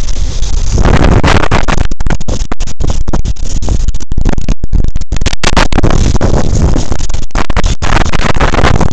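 Loud wind rush on the microphone of a skier's body-worn camera while skiing downhill, mixed with the skis hissing and scraping over the snow. In the middle stretch the sound cuts out for split seconds many times.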